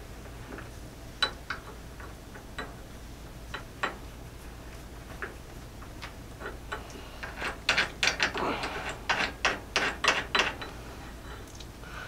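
Light metal clicks and ticks from a VISM handgun sight pusher as its T-handle screw is turned to push a rear sight across a Glock slide's dovetail. The clicks are scattered at first, then come in a quick, louder run over a few seconds in the second half.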